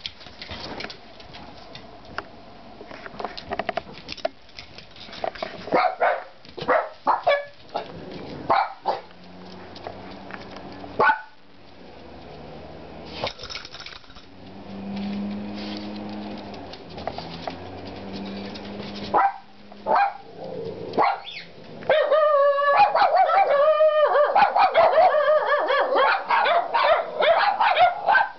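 Small dogs barking and yipping: scattered sharp barks through the first half, then, about three-quarters of the way in, a continuous run of loud, high-pitched yapping and whining from several dogs at once.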